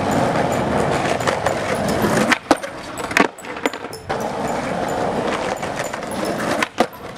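Skateboard wheels rolling on concrete, then a run of sharp clacks from the board about two seconds in as a trick is popped and landed. The rolling picks up again afterwards, with two more knocks near the end.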